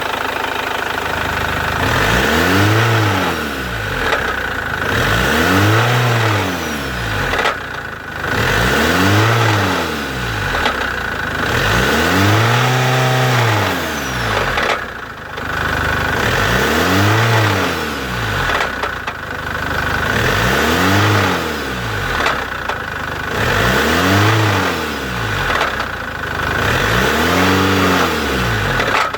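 Chevrolet Captiva 2.2 diesel engine blipped repeatedly from idle, about eight times, each rev rising and falling back. A steady high whine runs under it throughout.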